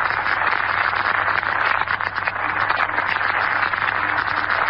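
Steady, loud hiss and static of a 1941 radio broadcast recording with no voice on it, over a low steady hum.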